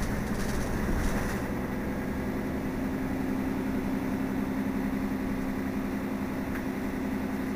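Mercedes-Benz Citaro city bus engine idling with a steady hum, with a short burst of higher noise in the first second or so.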